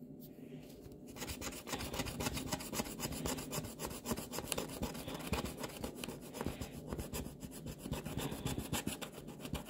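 Scratch-off coating on a paper sheet being scraped away with a small metal disc: rapid, rasping back-and-forth scratching strokes, several a second, starting about a second in.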